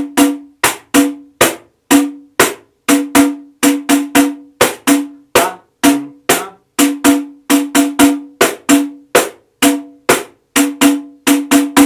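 Pandeiro played in the partido alto samba rhythm: thumb bass strokes and slaps on the drumhead, its metal jingles ringing with every stroke. A steady repeating pattern of about three strokes a second.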